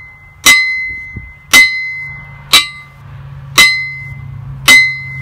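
Hammer striking a homemade anvil made from two welded lengths of railroad track: five blows about a second apart, each leaving a clear high ring that fades away. The bright ring and the hammer's bounce show very hard steel.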